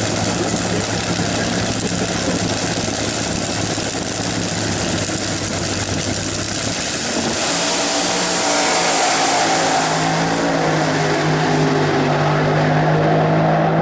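Vehicle engine running steadily at low speed. About halfway through, the engine note changes and grows a little louder.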